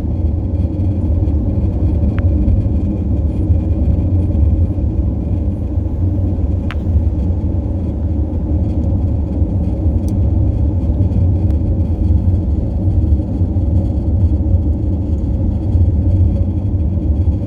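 Steady low buzzing drone with a deep rumble underneath, from a 2018 Audi Q7, the buzzing sound being shown.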